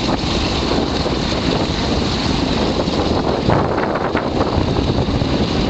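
F4U-1D Corsair's Pratt & Whitney R-2800 radial engine running as the fighter taxis away, its propeller turning. Heavy wind buffets the microphone throughout.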